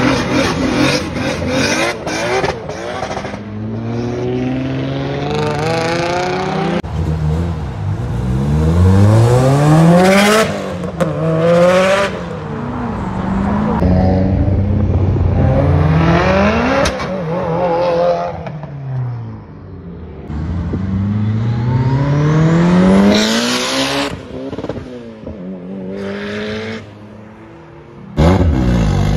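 Tuned sports car engines revving hard and accelerating, the pitch climbing through each gear and dropping sharply at every shift, again and again.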